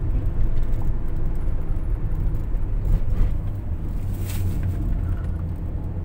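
Steady low rumble inside the cabin of a Toyota Noah 70-series minivan rolling downhill, from engine and tyre noise, with the semi-automatic transmission held in a manual gear so the engine brakes the van. A brief rushing hiss about four seconds in.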